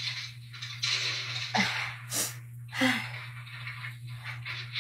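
A person breathing close to the microphone in soft swells, with a brief sharp noise a little after two seconds in, over a steady low hum.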